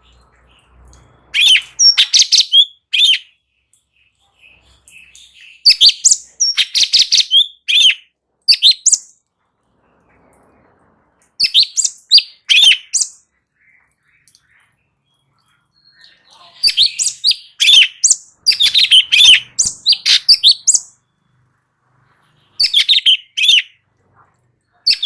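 Cucak cungkok songbird singing in loud, rapid bursts of high chirping notes. There are five phrases of about one to four seconds each, separated by short pauses.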